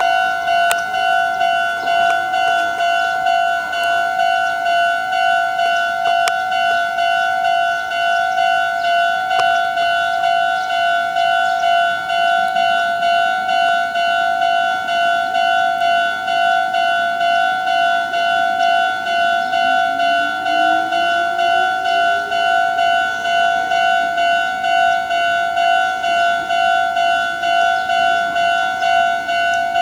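Japanese level-crossing warning bell ringing at a Meitetsu crossing: an electronic ding-ding tone repeating evenly, about one and a half strikes a second. A faint rising whine sits underneath about two-thirds of the way in.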